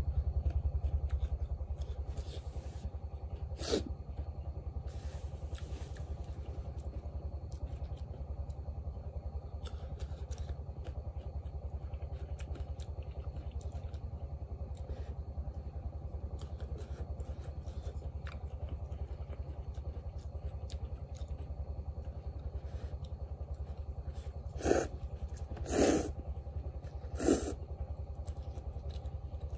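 A small engine running steadily, a low drone with a fast, even pulse. Near the end, three loud slurps of noodles.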